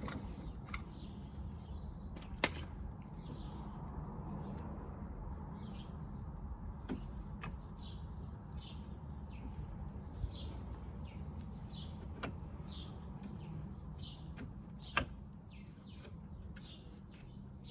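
A bird chirping over and over over a steady low hum, with a few sharp clicks or knocks, the loudest about two and a half seconds in and again near fifteen seconds.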